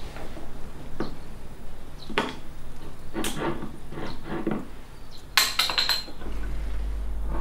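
Glass and dishes being handled on a table: light knocks and clinks spaced about a second apart, then a quick run of brighter clinks about five and a half seconds in.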